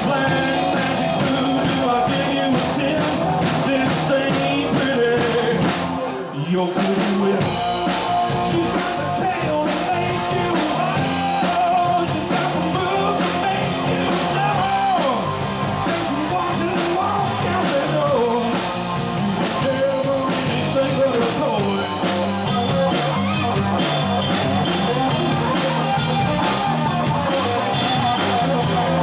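Live rock band playing a song with a drum kit and guitars, the beat steady throughout, with a brief break in the sound about six seconds in.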